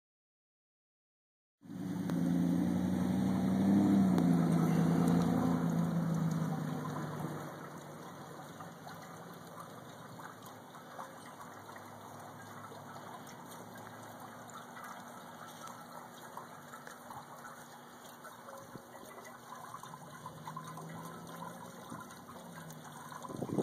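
Water still running and trickling inside an ice-encrusted fountain, a steady wash. For the first several seconds a louder low hum sits over it, then fades out.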